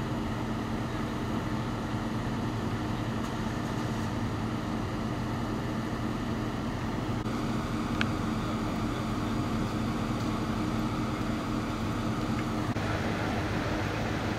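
Steady low hum of idling vehicle engines, even throughout, with a single short click about eight seconds in.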